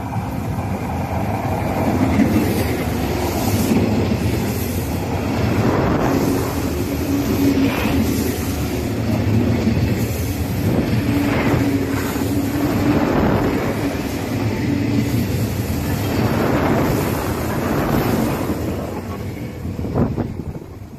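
EMU1200 electric express train running on rails, with a steady low hum and repeated knocks every second or two from the wheels. It grows louder in the first couple of seconds, holds, and fades over the last two seconds, with one sharp click just before the end.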